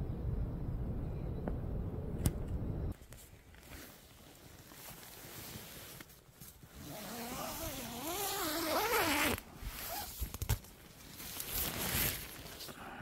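Wind gusting against a tent, a loud low rumble that cuts off about three seconds in. After that come quieter rustles and scrapes, with a wavering tone for a couple of seconds near the middle.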